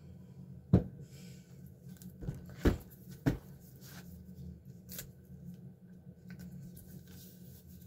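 A large roll of double-sided tape being handled on a cutting mat: a few light knocks and taps as it is picked up and set down, with soft rubbing as fingers pick at the tape's edge.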